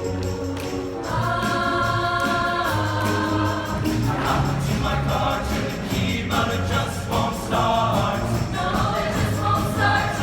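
A choir singing with band accompaniment: sustained sung notes over a bass line and a steady beat.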